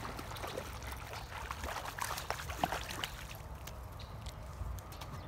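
Creek water running and trickling, with a flurry of short splashes and clicks in the first three seconds as a hooked trout is fought and brought in on a spinning rod.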